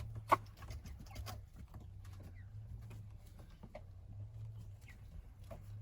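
Month-old ducklings moving about on their bedding, with scattered small pattering and pecking clicks and a few short, soft peeps. A sharp click comes about a third of a second in, over a low steady hum.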